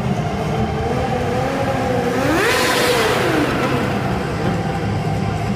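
Sport motorcycle engine running, then revved up sharply about two seconds in, held at high revs for about a second and let fall back.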